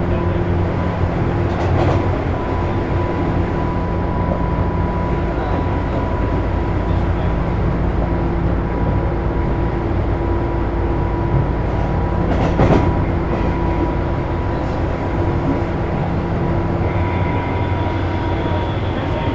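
Tobu 9000 series train running, heard inside car MoHa 9204, with steady whining tones from its AFE chopper controller, which is switching at an abnormally low frequency. A single knock comes about two-thirds of the way through, and higher tones join near the end.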